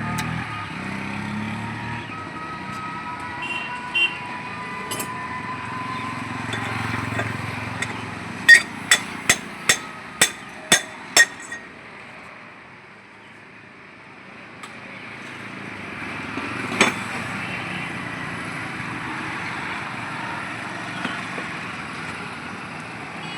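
Metal hammer blows: a quick run of seven sharp strikes, about two a second, then a single strike a few seconds later. These go with fitting a new ball bearing into an e-rickshaw's handlebar steering head.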